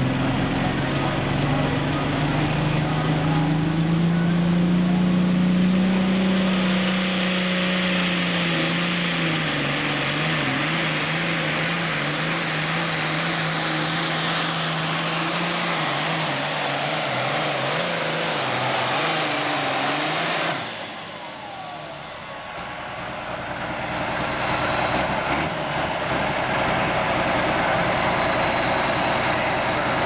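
John Deere 4430 Super Farm pulling tractor's turbocharged diesel engine at full power hauling the sled, with a high turbo whine that climbs early on and an engine pitch that wavers up and down under the load. About two-thirds of the way through the engine lets off and the turbo whine falls away, then an engine again runs hard under load.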